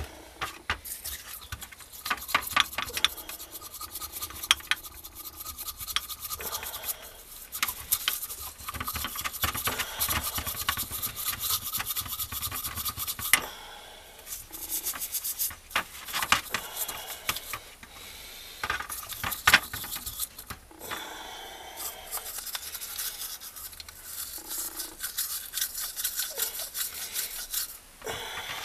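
Rapid scraping and scrubbing of a hand tool against the metal body of a Toyota Avensis D-4D diesel EGR valve, in bursts of quick strokes with short pauses, as caked carbon deposits are cleaned off it.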